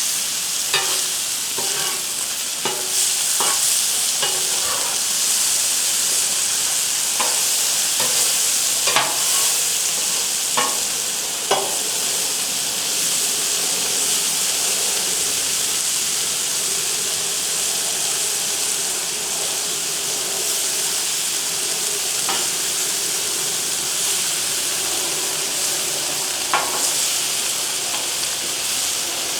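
Sliced onions, mushrooms and peppers sizzling steadily on a Blackstone flat-top griddle, with sharp clicks of a spatula turning them, frequent in the first dozen seconds and a couple more later.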